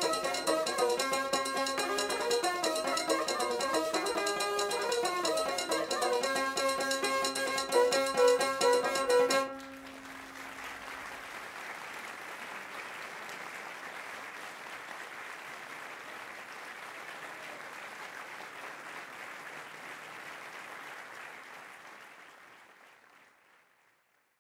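Traditional string-instrument music that stops suddenly about nine seconds in, followed by audience applause that fades out near the end.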